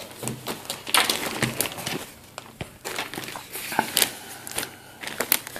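Black fabric face mask being picked up and handled, giving irregular rustling and crinkling with sharp crackles.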